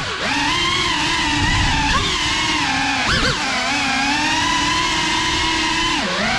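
Cinelog 35 cinewhoop FPV drone's brushless motors and ducted propellers whining. The pitch holds fairly steady, then dips and climbs sharply with a throttle change about three seconds in, and again near the end.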